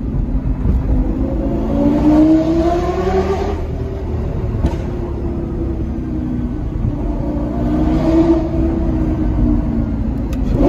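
Lamborghini engine heard from inside the cabin, accelerating with a rising pitch for about two seconds before it drops off sharply, with a short crack soon after. It cruises for a few seconds, then revs up again and eases off near the end.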